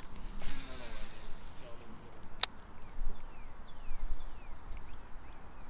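Baitcasting reel spool spinning out on a cast, a hissing whir about a second long, then one sharp click about two and a half seconds in as the reel is engaged.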